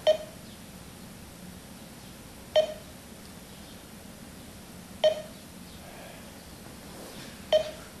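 An electronic alarm beeping: one short, mid-pitched beep about every two and a half seconds, four times.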